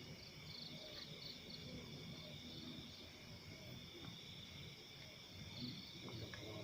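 Crickets and other night insects trilling steadily and faintly, with a run of short pulsed chirps about half a second in.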